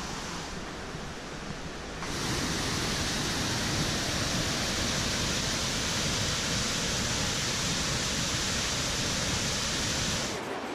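Salto Álvar Núñez waterfall at Iguazú, a steady roar of falling water heard close by. It cuts in abruptly about two seconds in and drops away just before the end.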